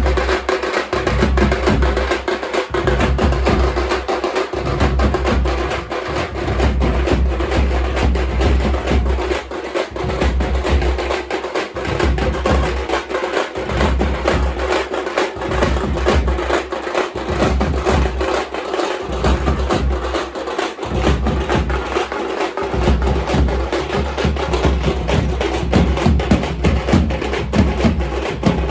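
Drums played loudly in a fast, dense rhythm, with a deep low booming that comes and goes every second or two.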